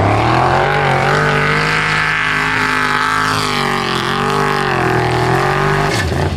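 Formula Offroad buggy's engine held at high revs under full load on a steep hill climb, its pitch wavering a little and dropping near the end.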